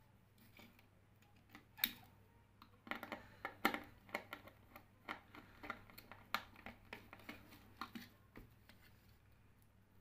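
Small clicks and taps of hands working with switches, wires and hand tools on a tabletop during switch wiring. The irregular run of clicks starts about two seconds in and stops shortly before the end, over a faint steady hum.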